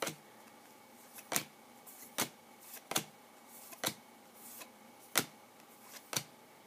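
2014 Bowman Chrome football cards being flipped through one at a time by hand, each card snapping against the stack as it is moved: seven sharp clicks about a second apart.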